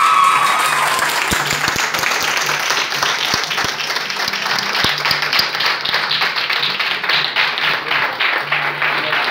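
Audience applauding, with a held musical note dying away about a second in.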